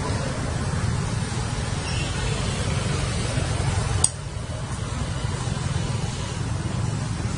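Steady low rumbling background noise with a hiss above it, and a single sharp click about four seconds in.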